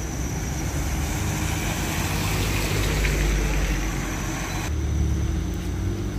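Car driving on a wet road: a steady low engine and road rumble with tyre hiss. The hiss drops away suddenly about three-quarters of the way through, while the rumble goes on.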